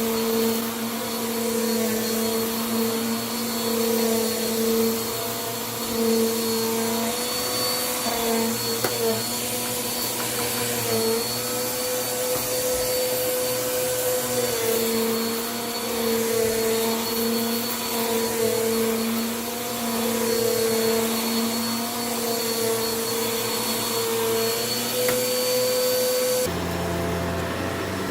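Vacuum cleaner running steadily while picking up dirt: a motor hum with a thin high whine, its pitch wavering slightly as the load changes. The tone shifts abruptly near the end.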